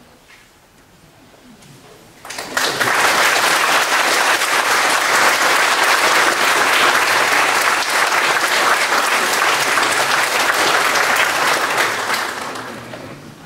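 Audience applauding. The applause breaks out about two seconds in, holds steady, and dies away near the end.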